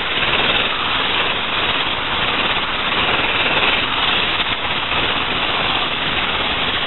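Electric hand mixer running steadily, its beaters creaming melted margarine with brown sugar in a bowl.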